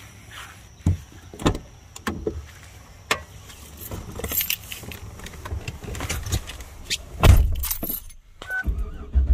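Handling noise: scattered clicks, knocks and rattles, with a heavy thump about seven seconds in and a short beeping tone near the end.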